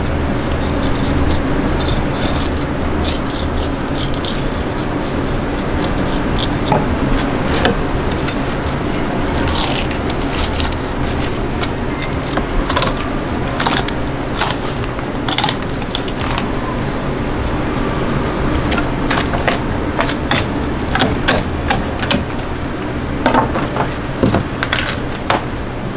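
Knife filleting a large yellowtail on a plastic cutting board: many short clicks and scrapes as the blade cuts along the fish and knocks the board, more frequent in the second half. A steady low mechanical hum runs underneath.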